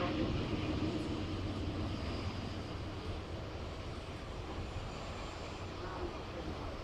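Steady rumble of a passing engine, slowly fading away.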